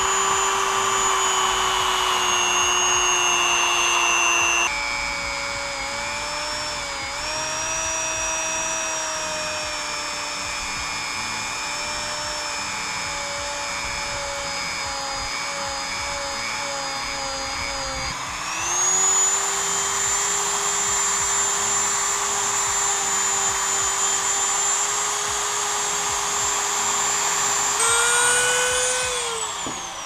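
Dremel rotary tool with a small sanding wheel whining at high speed as it grinds the bare aluminum case of a supercharger. Its pitch drops and wavers for a long stretch while the wheel is worked against the metal, then rises again, and winds down near the end.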